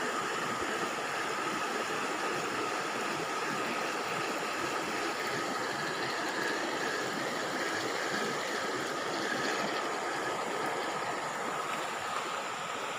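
Steady rush of a shallow river running over stones.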